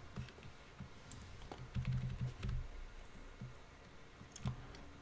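Irregular keystrokes on a computer keyboard as code is typed, with a quicker run of taps about two seconds in.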